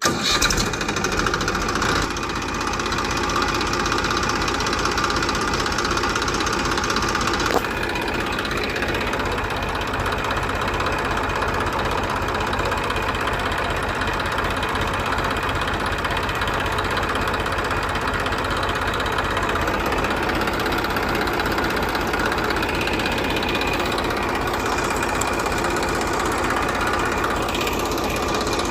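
A small engine running steadily with a fast, even knocking rhythm. A single sharp click comes about seven and a half seconds in.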